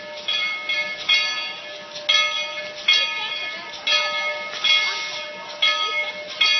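Steam locomotive's bell rung over and over, each strike ringing on into the next, at about one strike a second with some strikes coming in close pairs.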